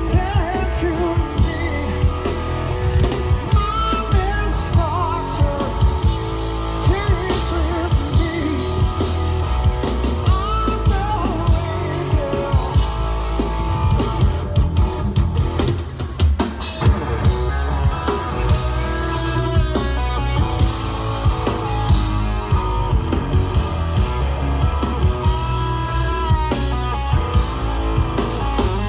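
A live rock power trio plays amplified through a stage PA, with electric guitar, bass, drum kit and a lead singing voice. The high cymbal wash thins out briefly about halfway through before the full band comes back.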